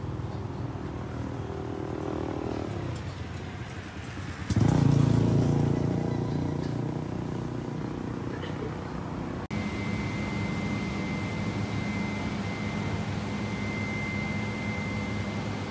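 A motor vehicle's engine running, jumping suddenly louder about four and a half seconds in and then slowly fading. After an abrupt cut, a different steady hum with a thin, high, steady whine.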